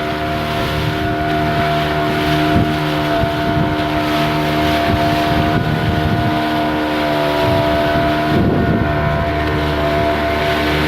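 Boat engine running steadily at an even pitch, with wind buffeting the microphone.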